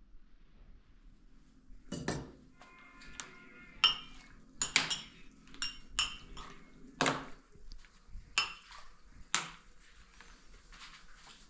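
Dishes and utensils clinking and knocking: about a dozen sharp, irregular strikes over several seconds, some ringing briefly, the loudest about four seconds in and about seven seconds in.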